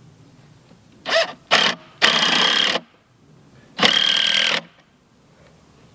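Cordless drill driving screws into a wooden footing form box: two quick bursts of the motor about a second in, then two longer runs of nearly a second each.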